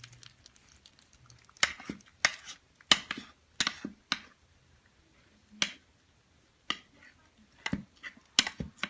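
Kittens' food bowls clacking and knocking: a string of sharp, irregular clicks, about ten in all, with a short gap in the middle.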